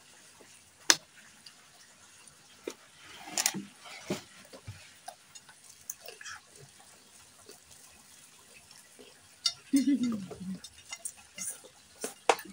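Eating sounds at a table: chopsticks clicking against a plate, and noodles being slurped and chewed, in scattered short clicks and rustles. A brief falling vocal sound comes about ten seconds in.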